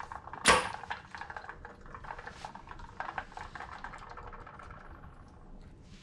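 Metal tools and parts being handled at a truck's front wheel hub: one sharp clank about half a second in, then light clicks and rattles that grow fainter.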